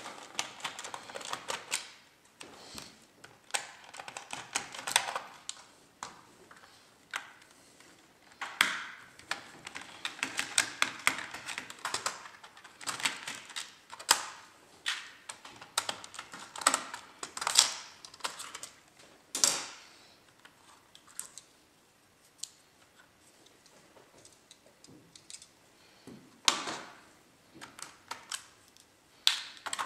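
Hand disassembly of an HP Pavilion dv6000 laptop's plastic bottom case: scattered clicks, taps and short rattles of a screwdriver, screws and plastic covers being handled, with a quieter pause about two thirds of the way through.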